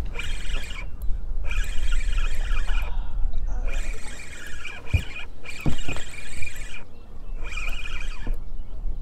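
Piscifun Carbon X spinning reel being cranked in spurts, its gears giving a high whirring squeak for a second or two at a time with short pauses between, as a fly is pumped and retrieved. A couple of sharp knocks come around the middle.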